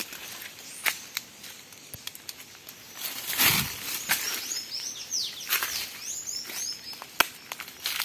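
Footsteps crunching through dry fallen leaves, with a loud crunch about three and a half seconds in and a sharp click near the end. From about four seconds in, a bird calls a quick series of short, falling chirps.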